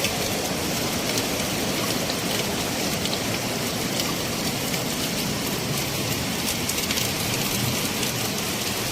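Rain falling steadily on surfaces, an even hiss with scattered sharper drop hits.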